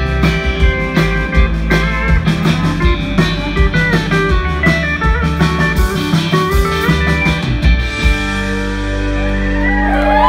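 Live country band of electric guitar, pedal steel guitar, bass and drums playing an instrumental passage with steady drum hits. About eight seconds in the drums stop and the band holds a final chord that rings on and swells.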